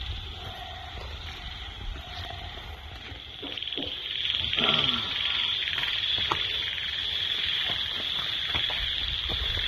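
A chorus of frogs calling, with a steady high-pitched trill that gets louder about four seconds in and scattered short calls over it.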